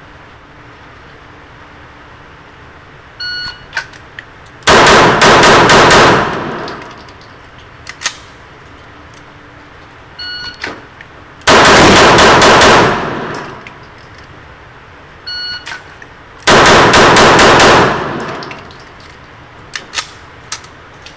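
An electronic shot timer gives a short start beep, then a Tanfoglio Stock II pistol fires a rapid string of six shots that echo off the concrete of an indoor range. This happens three times, with a few sharp clinks between the strings.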